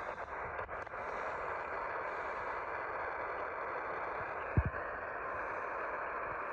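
Radio receiver static: a steady hiss from a receiver tuned to a weak station, with a few crackles in the first second and a single low thump about four and a half seconds in.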